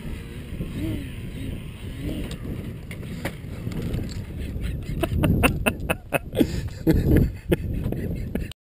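Wind rumbling on the microphone outdoors, with a quick run of sharp clicks and knocks starting about five seconds in; the sound cuts off abruptly just before the end.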